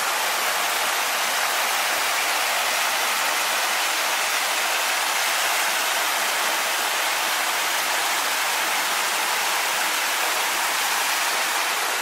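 Decorative garden fountain: water falling from a ledge and splashing steadily into its basin.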